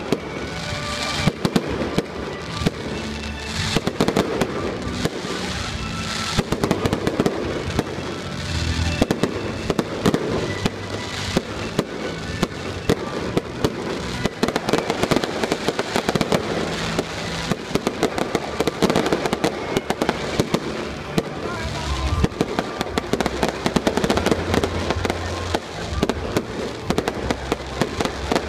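Aerial fireworks display: shells bursting in rapid, near-continuous succession, a dense stream of bangs, pops and crackles, with music playing underneath.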